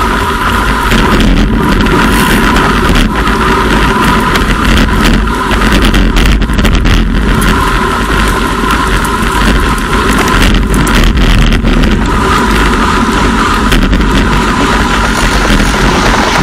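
Steady rush of wind and road noise on a bike-mounted camera's microphone as a road bicycle rides at about 45 km/h, with tyre hiss on the wet road and scattered small knocks and rattles from the road surface.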